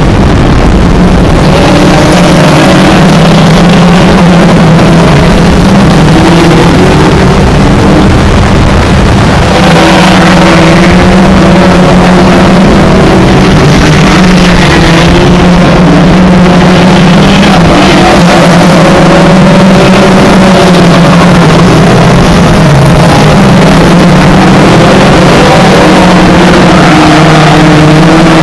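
Several hot rod race cars' engines running hard and revving around a shale oval, very loud throughout. Their pitch rises and falls as the cars accelerate out of the bends and pass by.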